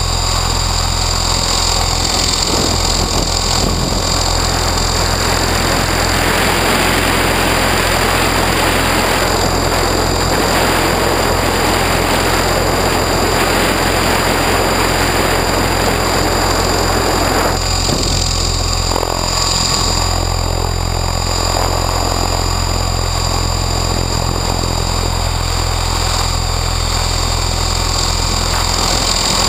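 Electric Align T-REX 600 RC helicopter in flight, heard from a camera on its own canopy: a steady low rotor drone with a high motor whine over it. A broad rushing of wind on the microphone swells from about two seconds in and drops back about seventeen seconds in.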